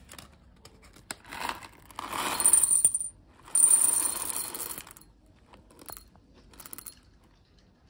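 Whole roasted coffee beans poured from a paper bag into a glass jar, clattering against the glass in two pours about two and three and a half seconds in, after a short rustle of the bag. A few stray beans click into the jar near the end.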